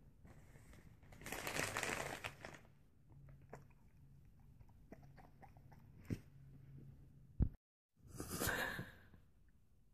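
Puppy crunching and chewing a hard treat: a spell of crunching followed by scattered small clicks of chewing. Another short crunching burst follows near the end.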